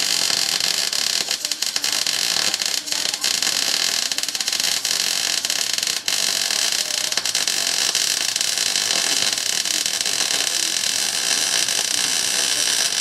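Arc welding on an axle tube: the arc crackles and hisses steadily with a rapid spatter of small pops, and breaks off briefly about six seconds in.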